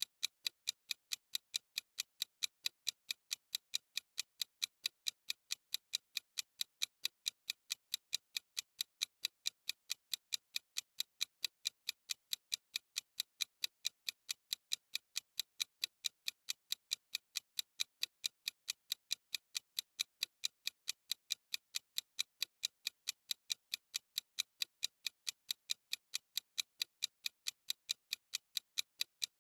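Clock-style ticking sound effect of a countdown timer: crisp, evenly spaced ticks at a steady, unbroken rate.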